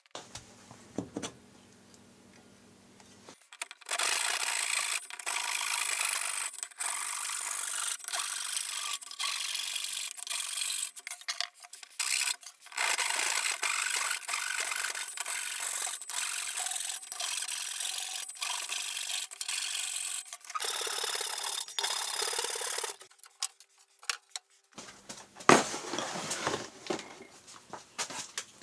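Handsaw cutting across a teak board in steady back-and-forth strokes. It starts about four seconds in and stops about twenty seconds in.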